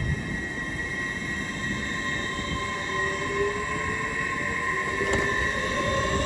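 LNER Class 800 Azuma train pulling away from the platform. Its drive gives a steady high whine, with a lower tone rising slowly in pitch as it picks up speed, over a rumble of wheels on rail. There is a single sharp click about five seconds in.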